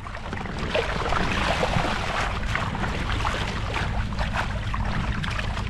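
Water rushing and splashing between the hulls of a sailing twin-kayak catamaran under way, with steady wind buffeting the microphone.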